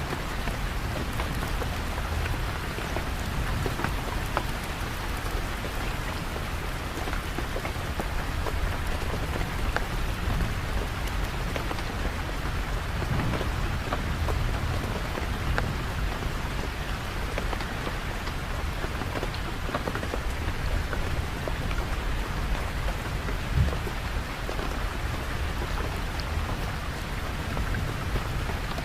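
Steady heavy rain pattering, with a low rumble underneath and one short low thump about three-quarters of the way through.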